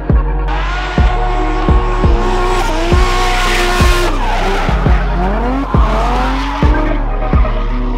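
Drift car sliding sideways at full throttle: tyres screeching and engine revving, the pitch dropping around the middle and then rising again. Music with a heavy drum beat runs underneath.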